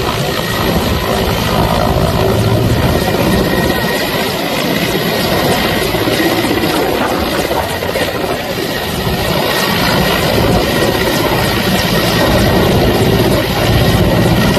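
Helicopter hovering low, its rotor and engine noise steady over the rushing of fast floodwater.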